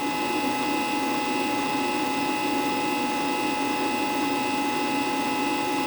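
Wire feed motor of a Sherman Digimig 200 Pulse MIG welder running, spinning the drive roller with a steady whir and a constant whine; its speed holds steady, with no stop or sudden change.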